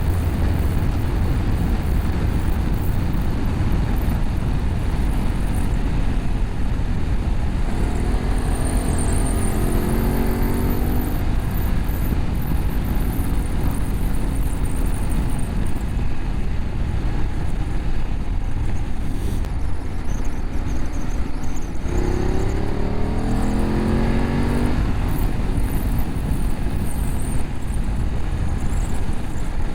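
BMW F850GS parallel-twin engine through an Akrapovic slip-on exhaust with a cat bypass, running at road speed under steady wind rush. Twice, about a third of the way in and again about two thirds in, the engine note climbs in pitch for about three seconds as the bike accelerates hard.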